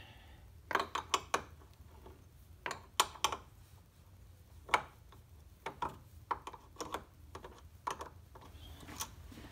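Ratchet wrench clicking in short, irregular runs of sharp clicks as it loosens the 1/2 inch bolts on the battery cable terminals.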